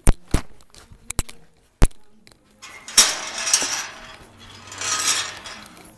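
A metal gate being handled and opened: four sharp metallic clanks in the first two seconds, then two longer scraping noises, about three and five seconds in.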